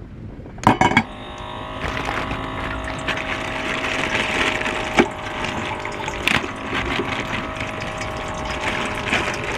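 A couple of sharp clicks, then a small motor running steadily with a hiss, with an occasional knock.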